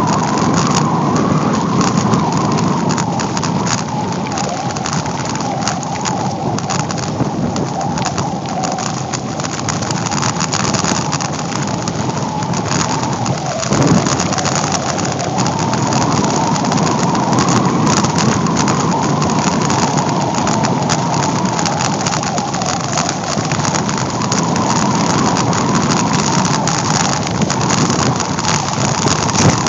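Wind rushing over the microphone and tyres rolling on a dirt road as a bicycle coasts downhill at speed, with a steady stream of small rattles and clicks from the bike. A brief jolt comes about fourteen seconds in.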